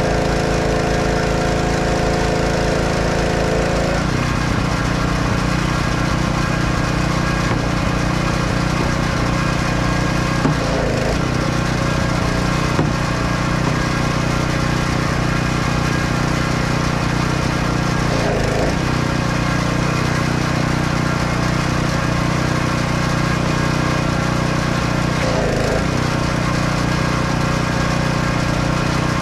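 An engine running steadily, its tone changing about four seconds in.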